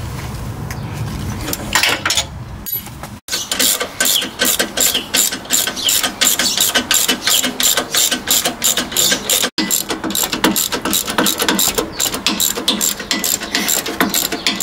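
Hand ratchet with a 19 mm socket clicking as it is swung back and forth to tighten the bolt through a sway bar end link's Heim joint. The fast, even clicking starts about three seconds in and runs on, broken by two brief cut-outs.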